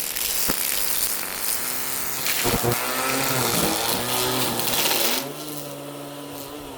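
Cordless battery string trimmer running, its line cutting grass with a dense noise. About five seconds in the cutting noise drops away, leaving the motor's whine, which starts winding down near the end.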